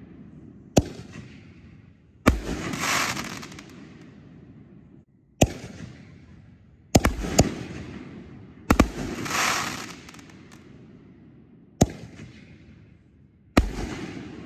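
6-inch aerial canister shells firing: about eight sharp, irregularly spaced bangs from launches and bursts, several trailed by a second or so of fading hiss.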